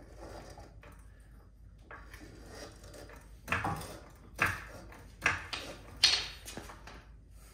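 Four metallic clunks about a second apart, the last the loudest, as a Pedders Extreme coilover strut is worked up into place in a car's front suspension.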